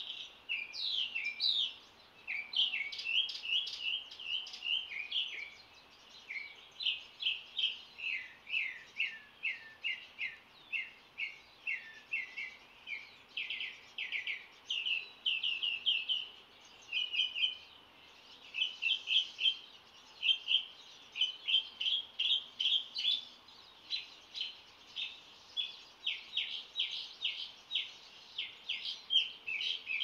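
Dawn chorus of songbirds: many quick, high, downslurred chirps in rapid runs, almost without a break, pausing briefly twice.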